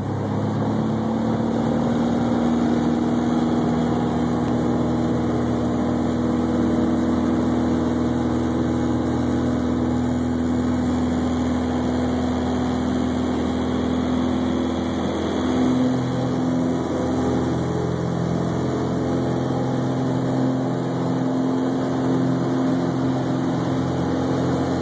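Cessna 182 single-engine piston engine and propeller at full takeoff power, heard from inside the cockpit: a loud, steady drone through the takeoff roll, liftoff and climb.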